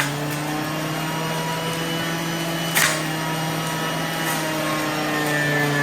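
NutriBullet centrifugal juicer's motor running steadily with a low hum, with a single sharp knock about three seconds in.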